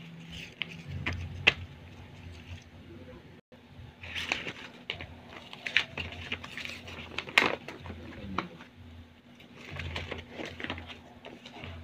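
A paper-and-plastic pack of glossy A4 paper being handled and opened: rustling and crinkling with a few sharp clicks, the loudest about a second and a half in and again about seven seconds in.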